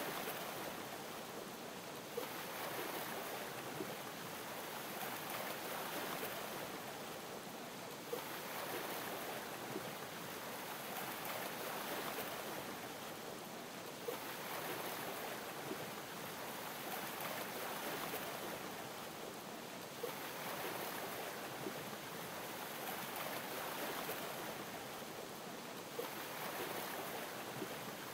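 Sea water lapping in a steady wash that swells and eases about every six seconds, with a short click near the peak of most swells.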